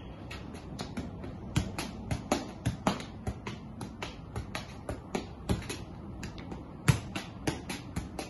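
Football being juggled with the feet: a quick run of sharp taps as the ball comes off the foot, a few much louder than the rest.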